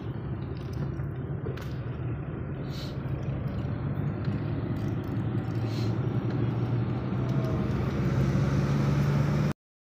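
Car engine and road noise heard from inside the moving car's cabin: a steady low hum that grows louder toward the end, with a few faint clicks. It cuts off suddenly just before the end.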